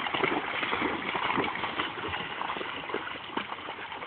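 River water splashing and sloshing, with a dense run of small irregular splashes and knocks.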